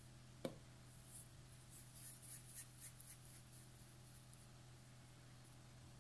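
Near silence over a steady low hum, with a single soft tap about half a second in and faint rubbing of hands rolling soft cookie dough into small balls.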